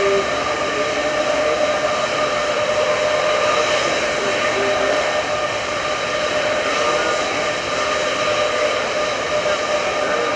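C-5B Galaxy's General Electric TF39 turbofan engines running at idle on the ramp: a steady rushing with a constant whine on top.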